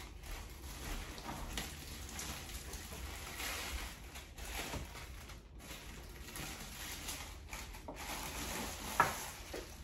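Clear plastic wrapping crinkling and rustling as juicer parts are handled and unwrapped, with a sharp click about nine seconds in.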